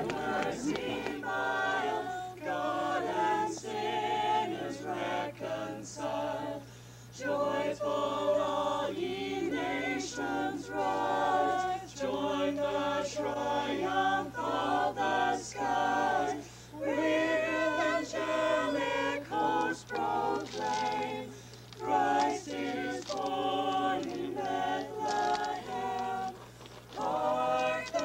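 A mixed group of men and women singing a song together in phrases, with short breaks between lines. A steady low hum runs underneath.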